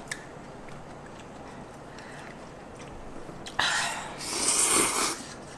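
Someone slurps ramyeon noodles from chopsticks: a loud, hissing slurp about three and a half seconds in that lasts about a second and a half.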